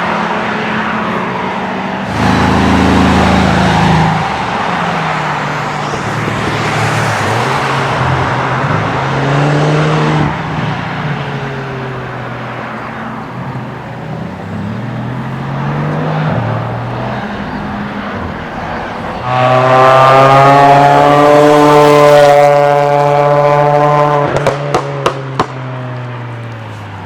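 Sports cars passing one after another on the Nordschleife track, their engine notes rising and falling through gear changes. The loudest passes about two-thirds of the way in with a strong, slowly falling engine note, followed near the end by a quick run of exhaust pops and crackles on the overrun.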